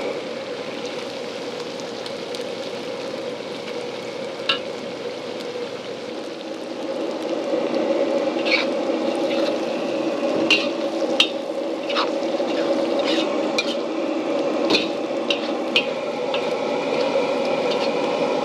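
Flaked smoked flying fish frying in oil in a steel wok, a steady sizzle that grows louder about seven seconds in. A metal spatula stirs and scrapes the wok, with sharp ticks scattered through the second half.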